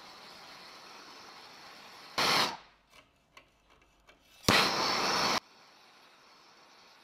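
MAPP gas hand torch flame hissing steadily while it heats aluminium for brazing. A short louder rush of flame noise comes about two seconds in, then a quiet stretch with a few faint clicks, then a second, longer loud rush of about a second before it settles to a fainter hiss.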